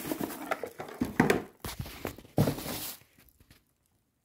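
Rustling and crinkling of old packing paper and plastic bags as parts are handled in a cardboard box, in irregular bursts that stop about three seconds in.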